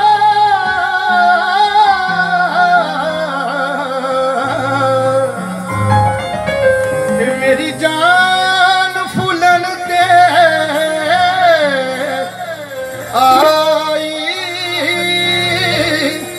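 Live Punjabi Sufi singing: a male voice holding long notes with wide sliding ornaments, over a keyboard's sustained low chords, with almost no drumming.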